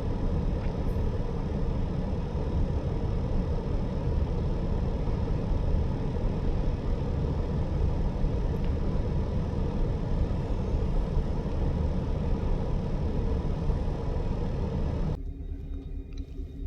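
EMD diesel locomotives idling, a steady low engine sound. It drops sharply to a quieter level near the end.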